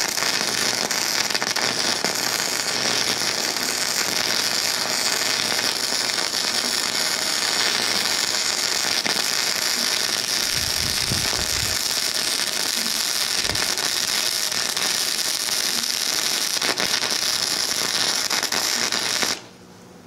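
Flux-core wire-feed welding arc crackling steadily, from a Harbor Freight 90-amp 110-volt welder converted to DC output (electrode negative) running .030 flux-core wire at wire speed 5. The arc stops abruptly near the end.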